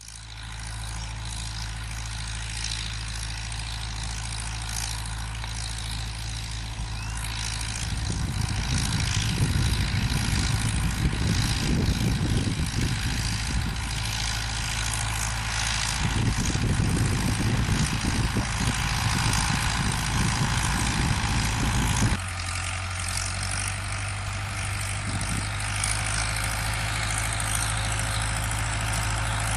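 Zetor 16145 tractor's six-cylinder diesel engine running steadily as it works a field. The sound grows louder and rougher from about 8 seconds in, then changes abruptly about 22 seconds in, back to a steadier, quieter engine note.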